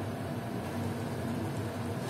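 Steady low hum and hiss of a lit gas stove burner under a pan of tomato chaat left to simmer, with no stirring.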